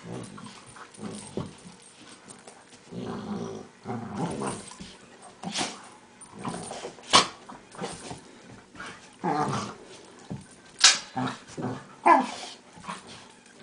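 Two dogs play-fighting: growls, yips and short barks in irregular bursts, with some sharp snaps. The smaller dog makes strange, monkey-like noises.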